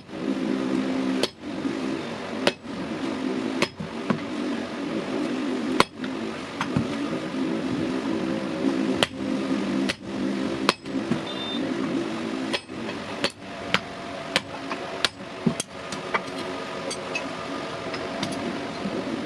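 Hammer blows ringing on the steel of an old vehicle axle being forged, struck at irregular intervals over a steady mechanical hum.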